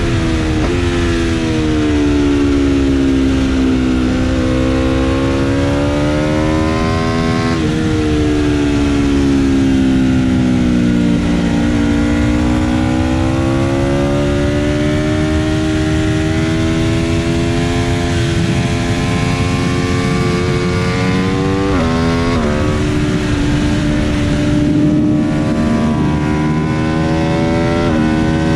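Aprilia RSV4 RF's V4 engine ridden hard on track: its pitch climbs through the revs and drops sharply at each upshift, then falls as the bike slows for a corner, over steady wind rush.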